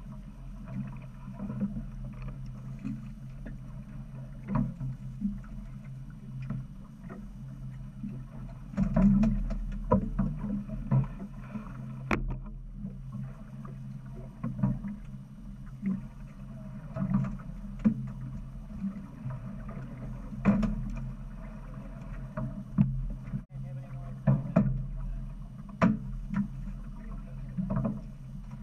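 Boat engine running steadily at low speed, a constant low hum, with scattered knocks and clicks from gear and handling on the deck.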